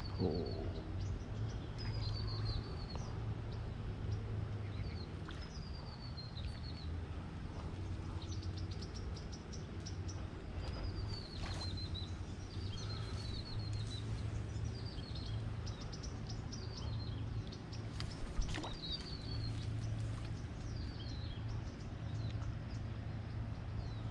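Songbird singing: short phrases of quick, falling high chirps repeated every second or two, over a steady low hum.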